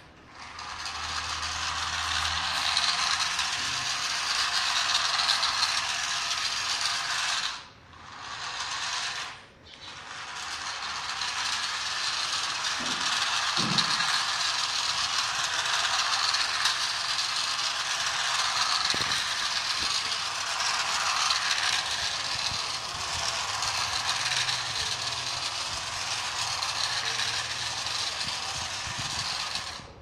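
Small toy remote-control car's electric motor and gears whirring steadily as it drives over a hard floor, cutting out briefly twice near the 8- and 10-second marks as the throttle is let off.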